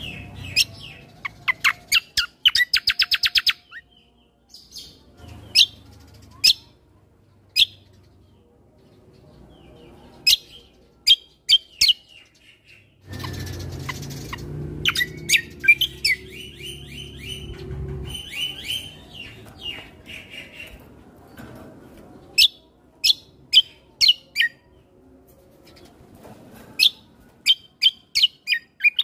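Kecial kombo (cucak kombo) songbird singing energetically. It gives loud, sharp, quickly falling whistled chirps, one after another. About two seconds in it breaks into a fast rattling trill. Near the middle a low rumbling noise runs under the song for several seconds.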